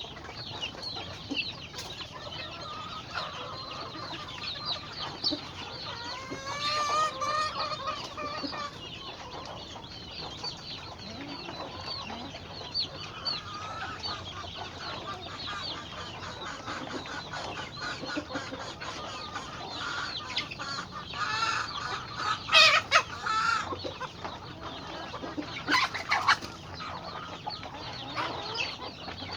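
A flock of chickens clucking and chattering, many short overlapping calls, with a few louder squawks about three quarters of the way through.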